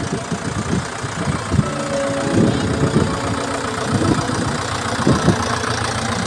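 Vintage tractor engine running at a slow idle with a rough, irregular knocking chug.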